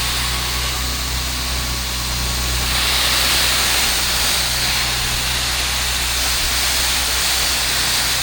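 Truck-mounted P40 pressure washer running steadily, with the hiss of water spraying from the wand onto plants; the spray grows louder about three seconds in.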